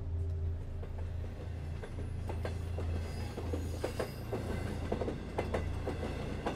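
A steady low rumble, joined about two seconds in by a run of irregular clicks and knocks, with a faint high squeal near the middle.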